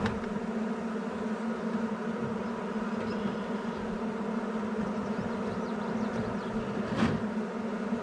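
Honeybees buzzing around an open hive as frames of bees are handled: a steady, even hum, with a sharp knock about seven seconds in.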